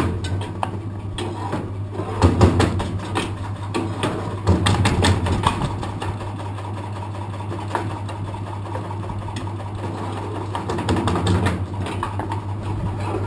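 Electric kindling splitting machine with a 1 hp motor and flywheel running, a steady hum under a rapid mechanical clatter. There are louder bursts about 2 seconds in, around 4 seconds in, and again near the end as wood is fed through and split into sticks.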